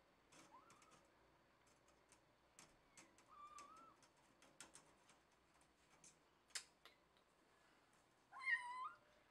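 A cat meowing quietly a few times: short calls early on and a longer, wavering meow near the end that is the loudest. Scattered light clicks sound in between.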